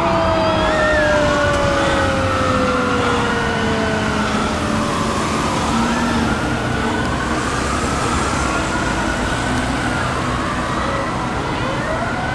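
Fire engine sirens on a code 3 response: a Federal Q2B mechanical siren winds down in one long falling tone over the first few seconds. An electronic wail siren rises and falls in slow cycles over low road and engine noise, and climbs once more near the end.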